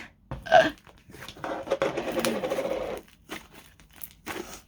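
Thick slime being squeezed and pressed by hand, crackling and popping as air bubbles burst. There is a short squelch about half a second in and a dense run of crackling in the middle, then scattered small clicks.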